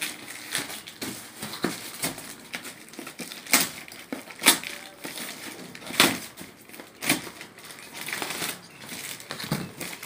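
Plastic courier mailer bag being torn open and crumpled by hand: irregular rustling and crinkling with several sharp crackles through the middle.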